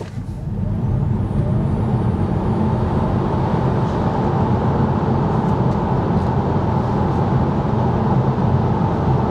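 Cabin noise of a Tesla Model 3 Performance launching hard from standstill to about 100 km/h on a wet road: tyre and road noise builds over the first second, with a faint rising electric whine. It then holds as a steady rumble while the car runs on at speed.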